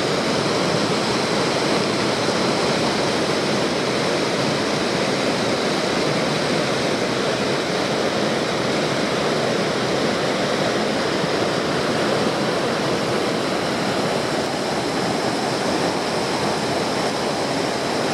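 Mountain stream rushing down a rocky chute in small whitewater rapids: a steady, unbroken rush of water.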